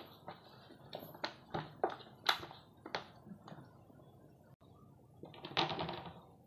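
Cats scuffling: a run of sharp, irregular knocks and scrapes, then a harsh burst lasting about a second near the end.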